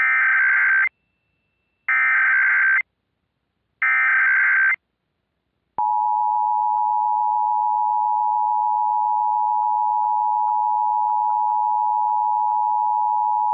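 Emergency Alert System activation tones, heralding a civil danger warning. First come three short SAME header data bursts, each under a second and about two seconds apart. Then, about six seconds in, the steady two-tone EAS attention signal (853 and 960 Hz) starts.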